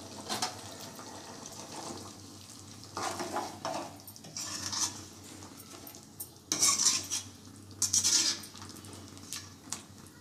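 Metal ladle stirring and scraping through thick chicken gravy in an aluminium kadai, in about five short separate strokes, to keep the gravy from catching on the bottom of the pan.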